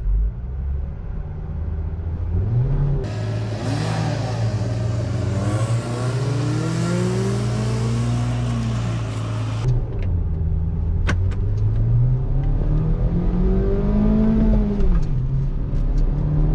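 Hyundai i20's 1.2-litre four-cylinder petrol engine under hard acceleration, its pitch climbing in long rising sweeps and dropping back at each gear change. For a stretch in the middle it is heard from outside as the car drives by; the rest is from inside the cabin.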